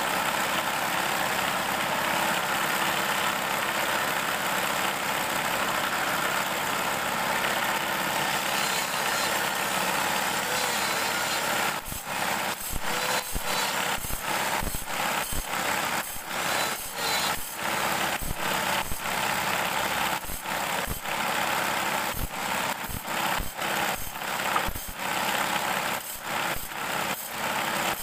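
A belt-driven table-saw arbor runs steadily while bandsaw blade teeth are ground against its spinning disc, giving a continuous grinding hiss. From about halfway through, sharp ticks come irregularly, roughly twice a second, as the teeth are fed against the disc one after another.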